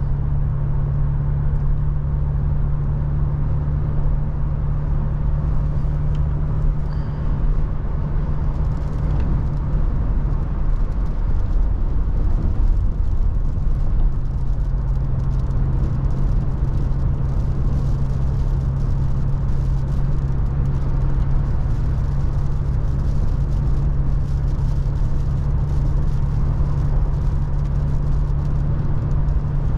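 Toyota FJ Cruiser's 4.0-litre V6 and road noise while driving: a steady low drone over a rushing haze of wind and tyre noise. The drone thins out for a few seconds about a third of the way in, then returns.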